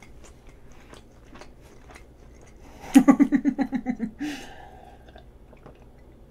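A woman chewing with small wet mouth clicks. About three seconds in she breaks into a short rapid giggle, then breathes out and takes sips from a glass, with quiet swallowing and mouth sounds.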